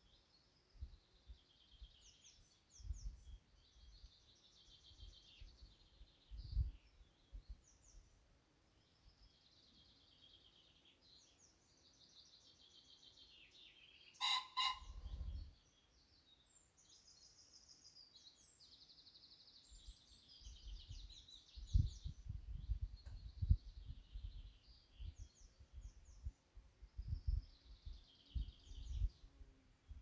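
Wild garden birds singing and chirping: a steady overlapping mix of short, high warbling phrases from several small birds. About halfway through comes one louder, brief call over a low rumble. Faint low thuds come and go, more of them near the end.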